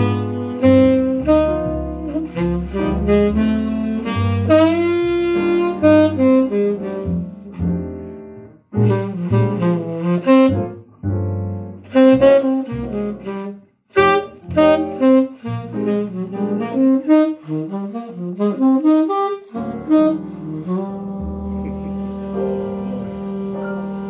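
Tenor saxophone playing jazz with piano: fast runs of notes, then near the end the music settles on a long held low note.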